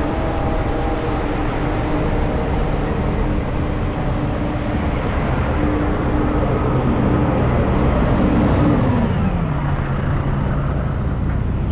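Street traffic noise with a steady engine hum that drops in pitch about nine seconds in.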